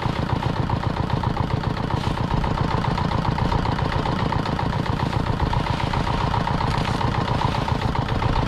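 A small engine running steadily at a constant speed, with a rapid low pulsing throughout.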